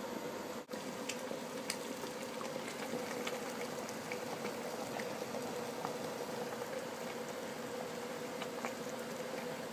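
Rice water boiling in a plastic container, scattered small bubbling pops over a steady hum, with a brief break in the sound about half a second in.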